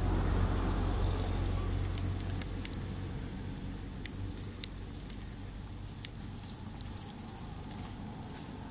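A low rumble that fades away over the first few seconds, with scattered small sharp clicks and crackles of dry leaves being handled.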